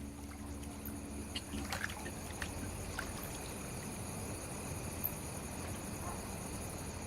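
Faint, steady background ambience with a few soft clicks and ticks.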